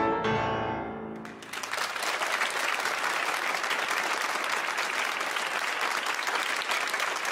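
Final notes of a Steinway grand piano ringing out and fading, then an audience applauding from about a second and a half in.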